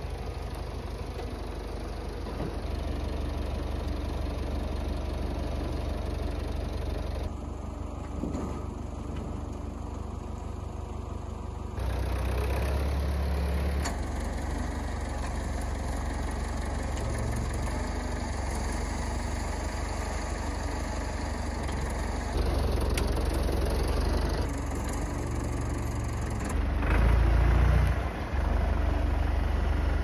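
Massey Ferguson MF 30 loader tractor's engine running steadily as the tractor works its front loader moving logs. The sound changes abruptly in level at several points and is loudest near the end.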